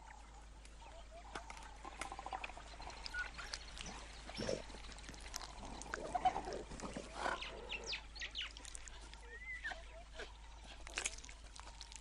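Spotted hyenas feeding on a rhino carcass: scattered wet tearing, crackling and chewing sounds as they bite into the hide and meat, with faint bird chirps.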